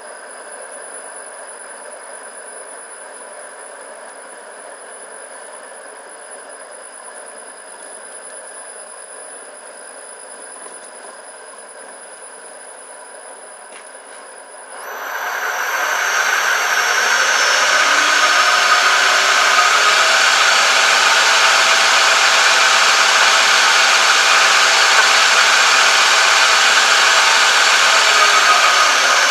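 Home-built metal lathe running idle with its new spindle and chuck spinning, a steady whir with a thin high whine. About halfway through it becomes much louder and fuller, a dense steady machine whir with several whining tones.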